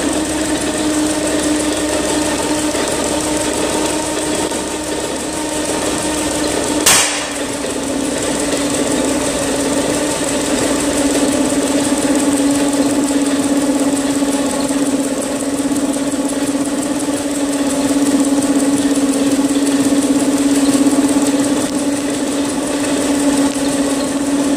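Twin-cylinder Gardner petrol engine running steadily, driving an air compressor that builds up pressure for a fog horn. A single sharp click about seven seconds in.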